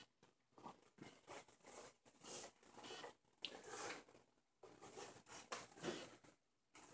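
Sloyd knife shaving silver birch, a string of faint short cutting strokes at roughly two a second.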